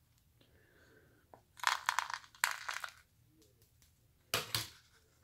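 Crackling and crunching of a firework rocket's paper head being crushed and torn open while its stars and powder are shaken out into a plastic cup. The crackling comes in two bursts: a longer one a little under two seconds in and a short one near the end.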